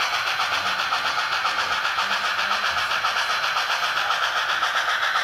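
Digital sound decoder in a brass model 2-8-2 Mikado steam locomotive, playing a steady run of hissing exhaust chuffs at about five a second through the model's small speaker as it hauls its freight train.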